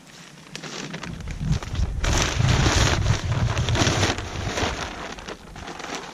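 Pelletized lime pouring from a bag into a push broadcast spreader's hopper: a rush of pellets that builds about a second in, is loudest in the middle and tails off near the end.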